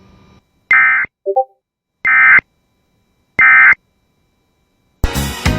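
Three short bursts of shrill EAS SAME digital data tones, about 1.35 seconds apart: the end-of-message code that closes a weather radio alert. A brief low beep falls between the first two bursts, and music with guitar begins near the end.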